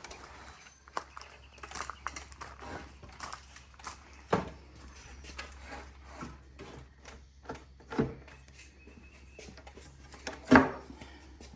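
Irregular knocks and clatters, as of boards and tools being handled on a bench, with the loudest knock near the end.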